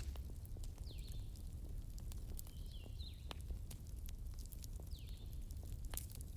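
Bonfire crackling: scattered sharp pops and snaps over a low rumble. A high, short falling chirp repeats every second or two in the background.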